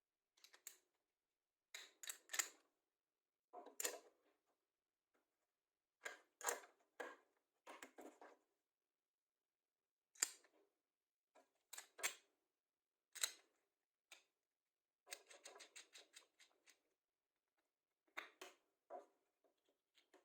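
Scattered short knocks, clicks and brief scrapes of wood parts and tools being handled and set down on a workbench, with dead silence between them. A quick rattling run comes around three quarters of the way through.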